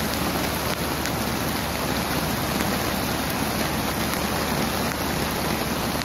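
Steady rushing of a river swollen with flash-flood water, churning past a washed-out bank.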